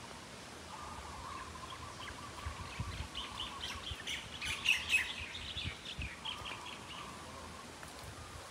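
Birds chirping in the trees: a run of short, quick high notes, busiest about halfway through, over faint outdoor background.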